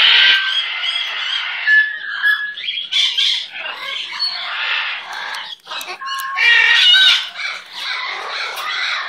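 Red-masked conure making squeaky, chattering calls mixed with short whistled notes, with the loudest burst of squeaks about six and a half seconds in.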